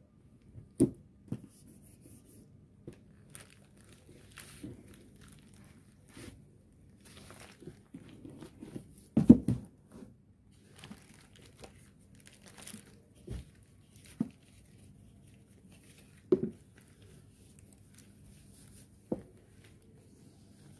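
Gloved hands handling a velvet drawstring pouch and a cardboard brush-set box: faint rustling with scattered soft knocks at irregular times, the loudest about nine seconds in.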